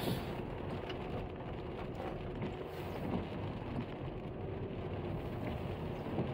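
Car driving on a wet road, heard from inside the cabin: a steady mix of engine and tyre noise with a faint low drone.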